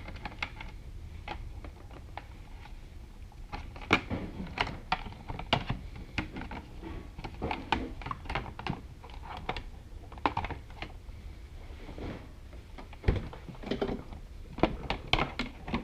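Irregular light clicks and taps of hands working plastic motorcycle trim and a battery lead, feeding the quick-disconnect lead through the side panel, with one dull thump late on.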